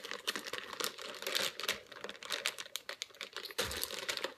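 Plastic bait packets crinkling and rustling as they are handled, in irregular crackles, with a dull bump about three and a half seconds in.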